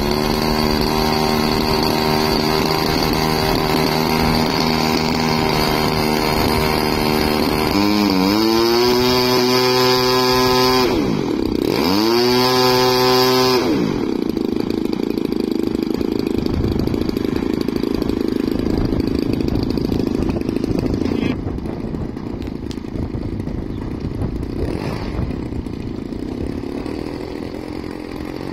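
The engine of an Edge 540 radio-controlled model aeroplane starts and idles steadily. It is run up twice, the revs rising and falling about eight and eleven seconds in, then settles back to a lower idle that grows quieter.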